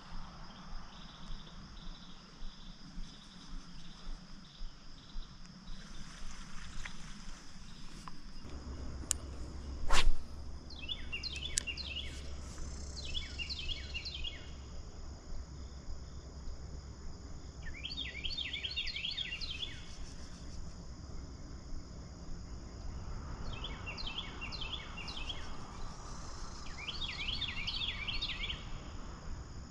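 Outdoor ambience: insects chirring steadily while a songbird sings short runs of quick repeated notes, five times in the second half. A single sharp click about ten seconds in is the loudest sound, and a low steady rumble sets in just before it.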